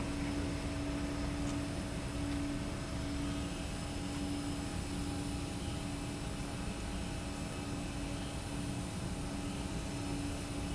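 Airplane noise: a steady drone with a constant low hum over a rush of air, holding level throughout.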